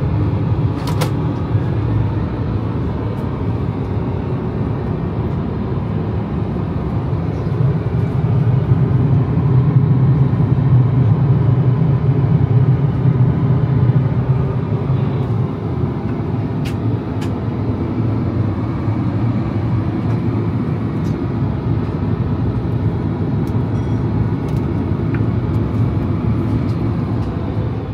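Steady low rumble of an Airbus A380 cabin in cruising flight, from engine and airflow noise, swelling a little about a third of the way in. A few light clicks and knocks come over it as the wood-veneer cabinet drawers and panels are handled.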